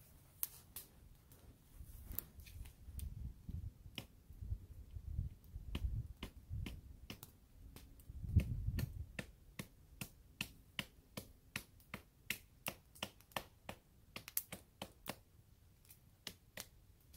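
Footsteps crunching through snow, sharp crunches at about two steps a second, with low thumps in the first half and a louder thump about eight seconds in.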